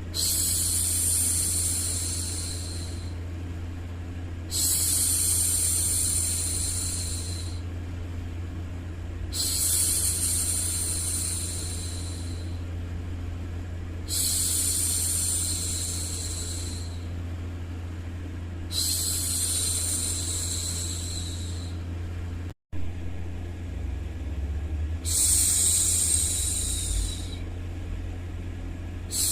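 A woman hushing a baby with long, repeated 'shhh' sounds: six shushes of about three seconds each, roughly every five seconds, over a steady low white-noise hum. The sound cuts out for an instant about two-thirds of the way through.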